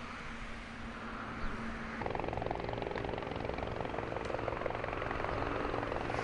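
A steady mechanical drone that takes on a fast, even chopping beat and grows louder about two seconds in.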